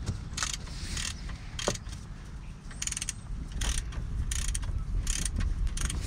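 Ratchet with a 7 mm Allen (hex) bit clicking in short, irregular runs as it winds the brake caliper's slider bolts out.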